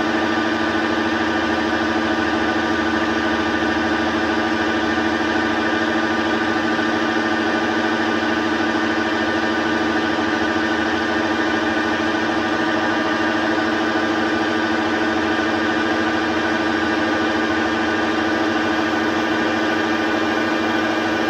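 Metal-turning lathe running steadily, its motor and gearbox giving a constant hum with a higher whine above it.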